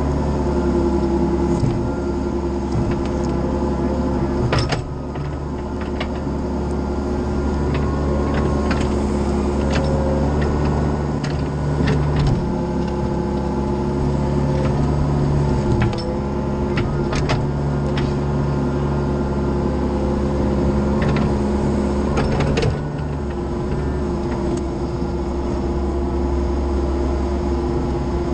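Mini excavator's diesel engine running steadily while its hydraulics work the boom and bucket, the pitch and load shifting several times as the bucket digs the trench. Scattered sharp knocks of the bucket and linkage against soil and stones.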